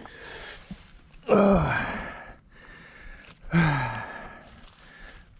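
A mountain biker breathing hard under effort: two loud, voiced exhalations that fall in pitch, one about a second in and one about three and a half seconds in, with softer breathing between.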